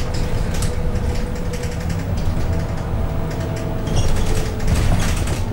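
Inside a moving double-decker bus: the engine's low drone with the body and fittings rattling and creaking, and a faint steady whine.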